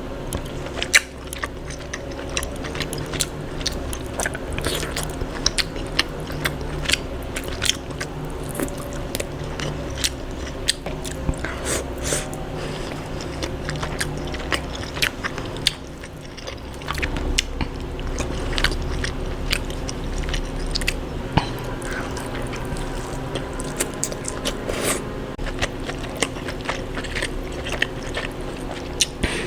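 Close-miked eating of seafood: biting and wet chewing, with frequent sharp clicks and cracks, over a steady low hum.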